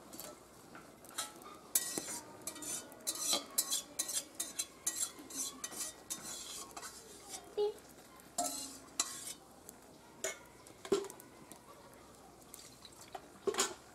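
Stainless steel cookware clattering: a long-handled steel spatula clinking and scraping against a steel colander, pot and wok in a quick run of sharp knocks, then a few single knocks near the end.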